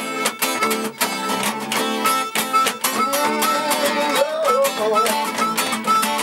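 Two acoustic guitars strummed in a steady rhythm, with a harmonica playing long, bending notes over them that grow stronger about three seconds in.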